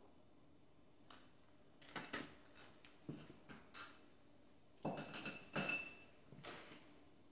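Clinks, clicks and taps of small metal parts of a radial engine's cylinder head being handled and set down during disassembly. The loudest, briefly ringing clinks come about five seconds in.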